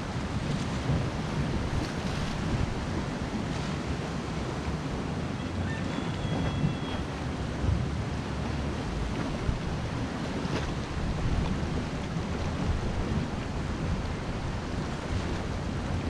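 Sea surf washing against a rocky shore, with wind buffeting the microphone as a steady low rumble.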